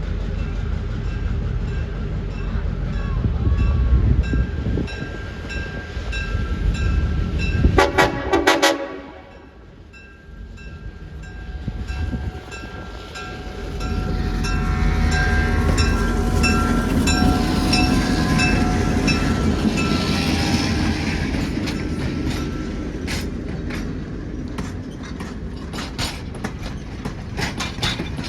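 A train running, with its horn sounding: a short blast about 8 seconds in and longer horn tones from about 14 to 22 seconds.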